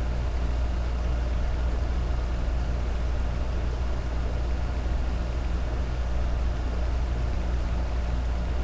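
Steady low hum with an even hiss over it, unchanging: background noise picked up by a webcam microphone.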